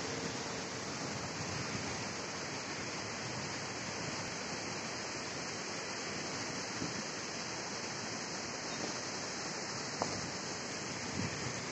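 Steady rushing of a flooded river flowing fast under a bridge, an even hiss that does not let up; a single faint click about ten seconds in.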